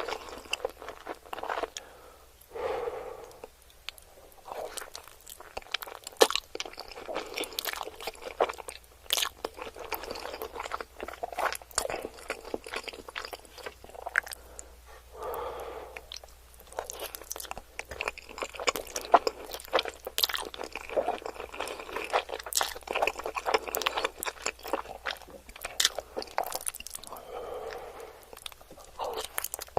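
Close-miked eating: continuous chewing with many sharp, wet mouth clicks.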